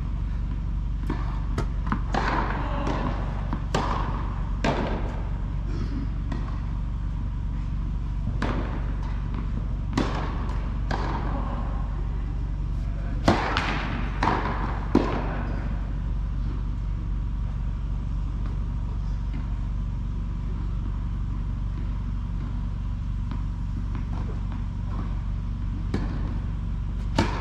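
Tennis balls bouncing and being struck, sharp echoing knocks at irregular intervals, in an indoor tennis hall over a steady low hum. The knocks cluster closest about halfway through, then only the hum is left for about ten seconds before more knocks near the end.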